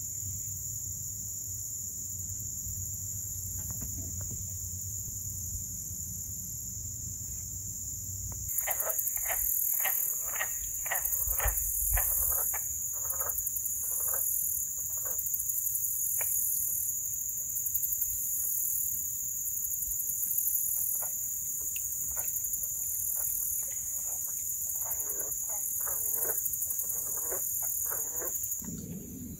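A steady, high-pitched insect chorus of crickets or katydids. About eight seconds in, short repeated calls join it, about two a second at first, then sparser, with another quick run near the end.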